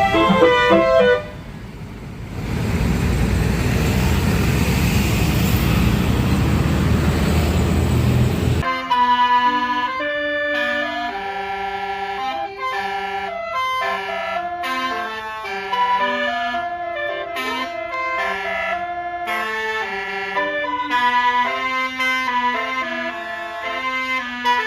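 A melody on a Basuri multi-tone bus air horn ends, then a heavy vehicle passes with a loud rushing engine noise. About eight seconds in, the sound cuts abruptly to a long tune of clear, stepped horn-like notes.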